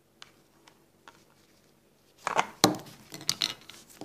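Objects being handled on a tabletop: a few faint clicks, then a louder cluster of knocks and clinks about halfway through as items are moved and a plastic bottle is picked up.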